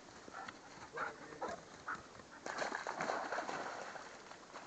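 A German shepherd dog running through wet undergrowth and across a muddy, puddled track, its paws rustling and splashing faintly, with a louder stretch of splashing about two and a half seconds in.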